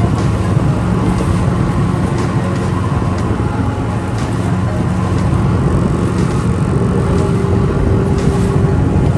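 Engine running steadily at an even speed, a continuous low drone without a break.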